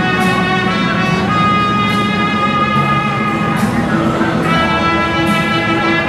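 Instrumental music with long held notes changing every second or two.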